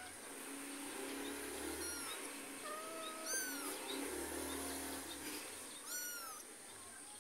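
Kitten mewing: a few short, high-pitched cries that rise and fall, about two, three and six seconds in.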